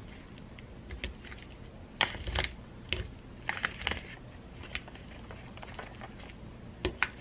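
Wooden chopsticks stirring natto in a plastic tray, giving irregular clicks and taps against the tray, with a louder cluster about two seconds in and a sharp double tap near the end.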